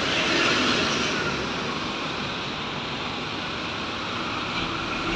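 Road traffic: a Toyota HiAce minibus passing close by, its tyre and engine noise loudest in the first second and then easing into a steady traffic rumble.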